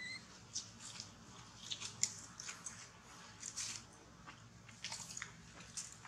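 Macaques moving over dry leaf litter and grit: scattered short crackles and crunches, with a brief high squeak right at the start.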